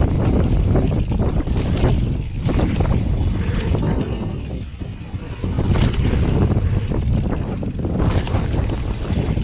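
Wind rushing over the camera microphone during a fast downhill mountain-bike descent, with a steady low rumble and clatter from the full-suspension bike's tyres and frame on rough trail. It eases off briefly near the middle.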